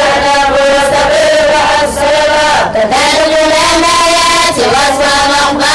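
A mixed group of male and female students chanting a memorised Arabic verse text (matn) in unison, an Arabic grammar poem on the sentence, sung in long held notes that dip in pitch twice, about midway and near the end.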